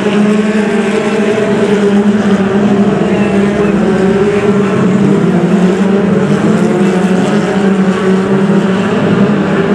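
Several BriSCA F2 stock car engines running together, their pitches rising and falling as the cars circle the track.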